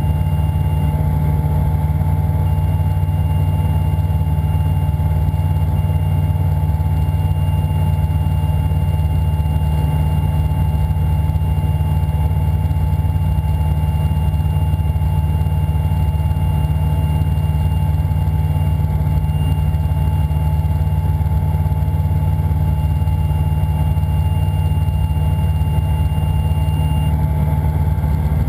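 Engine and propeller of a Gobosh 700 light-sport aircraft droning steadily at high power, heard inside the cockpit, as the plane is held nose-high into a power-on stall. A faint thin high tone runs over the drone until shortly before the end.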